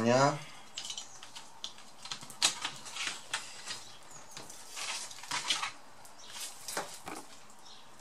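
Scattered light clicks and taps of hard plastic laptop parts being handled: the display bezel pressed along its edge and the hinge cover trim picked up.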